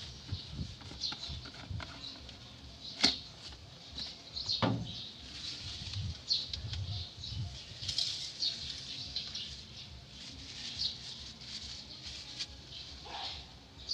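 Light rustling and scraping of hands and a rag working in a car's engine bay with the engine off, with two sharp clicks, one about three seconds in and one just under five seconds in.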